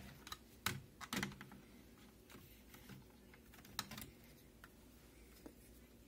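A few faint, scattered clicks and taps of plastic and metal as a 2.5-inch SSD is handled and fitted into a blue plastic drive caddy, with quiet gaps between them.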